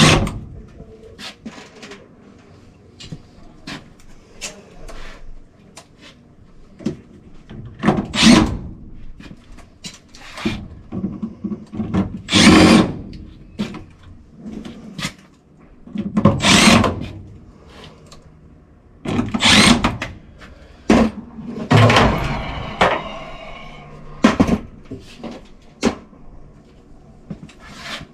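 Cordless drill/driver run in several short bursts a few seconds apart, driving screws into the furnace's sheet-metal panels, with handling knocks between the runs.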